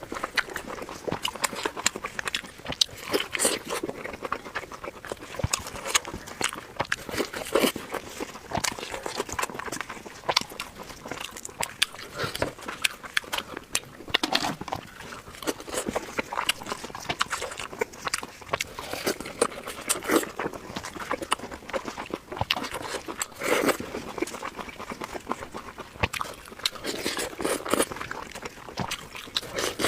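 Close-up eating sounds: fast, irregular chewing and lip-smacking with many sharp wet clicks, the audio sped up.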